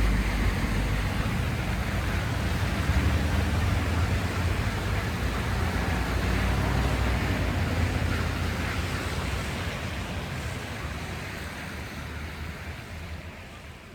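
Steady outdoor noise with a strong low rumble, no distinct events, fading out gradually over the last several seconds.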